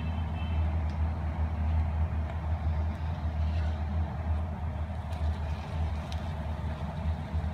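Aloo paratha frying in oil on an iron tawa over a steady low rumble, with a few light spatula scrapes as it is turned.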